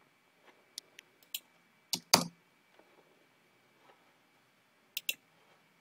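A few computer keyboard keystrokes: scattered single clicks, a louder pair about two seconds in and another pair near the end.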